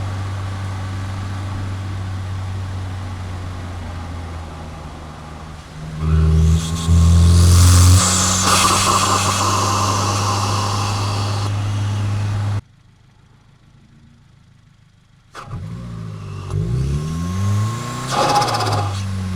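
Tuned 2022 Subaru WRX's 2.4-litre turbocharged flat-four, heard at the intake: running steadily, then a loud burst of throttle about six seconds in followed by an airy turbo rush. The sound cuts out abruptly for about three seconds, then the engine returns with revs climbing in pitch.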